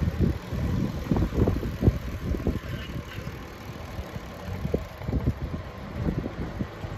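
Wind buffeting the microphone of a moving rider: an uneven low rumble with irregular gusts.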